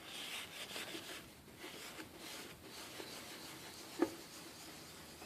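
Paper towel rubbing over a plastic headlight lens in repeated wiping strokes, wiping off excess toothpaste polish. A single sharp tap about four seconds in.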